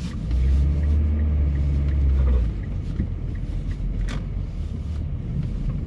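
Car driving on a snow-covered road, heard from inside the cabin: a strong low rumble for the first two seconds or so, then a quieter, steady drone of engine and tyres. A single click about four seconds in.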